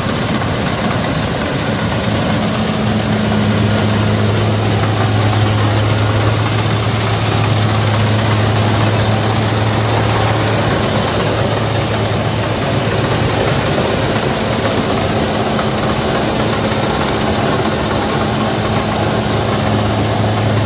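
Rice combine harvester running steadily at work: a continuous low engine hum under a dense mechanical clatter.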